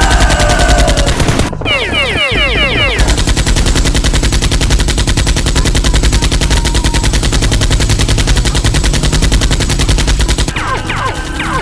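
Rapid automatic gunfire, a machine-gun sound effect that runs almost without pause. It breaks briefly about a second and a half in for a few falling tones, and more falling tones come in near the end.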